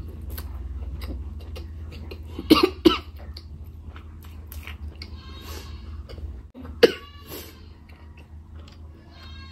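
A woman coughing: two sharp coughs in quick succession about two and a half seconds in and another near seven seconds, between small clicking mouth sounds of eating. A low steady hum runs underneath.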